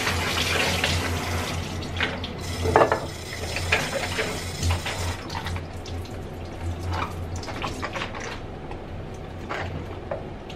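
Kitchen tap running into a sink while dishes are washed, with sharp clinks of crockery against the sink. The running water is loudest in the first couple of seconds, then eases off as the clinks carry on. A low steady hum sits underneath and stops about seven seconds in.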